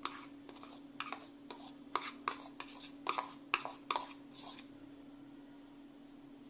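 A metal spoon scraping and clicking against a plastic bowl as chopped onion is pushed out into a steel bowl: a dozen or so short, uneven scrapes and taps that stop after about four and a half seconds. A steady low hum runs underneath.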